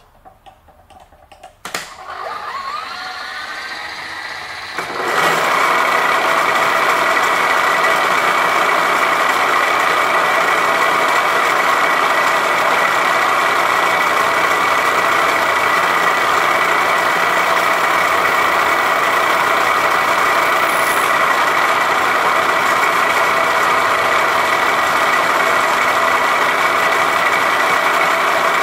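Vertical milling machine: a few small clicks and a knock, then the spindle winding up over a few seconds. After that an end mill side-mills a metal block in a heavy cut, a loud, steady cutting noise with a constant high whine.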